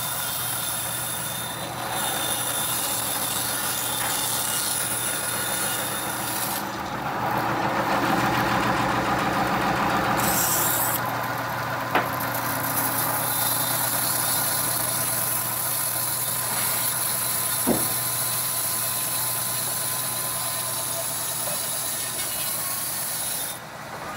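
Bandsaw sawmill running with its blade cutting through a mahogany log: a steady machine drone with a thin high whine, louder for a few seconds in the middle. A single sharp click comes about halfway through.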